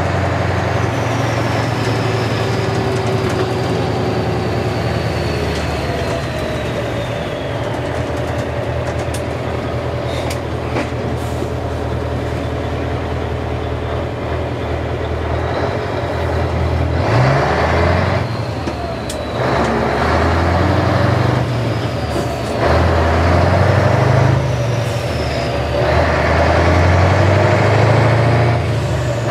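Scania V8 diesel truck engine heard from inside the cab while driving, a steady low drone. In the second half the engine revs up and drops back several times as it pulls through the gears. Early on a faint high whistle slowly falls in pitch.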